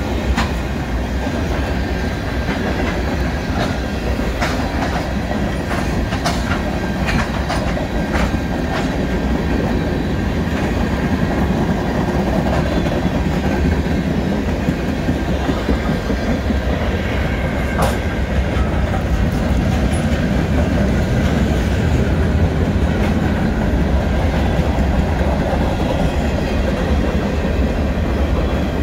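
Freight train of tank cars and covered hoppers rolling past: a steady rumble of steel wheels on rail, with scattered sharp clicks, several in the first few seconds and one more about halfway through.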